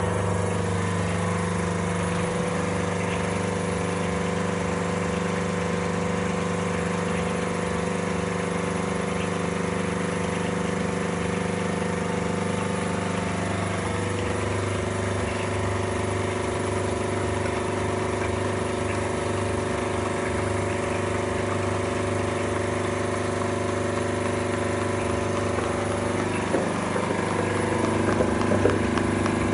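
Motor of a stainless-steel hydraulic basket press humming steadily as it presses, the pitch of its hum shifting slightly about halfway through. A few irregular clicks near the end.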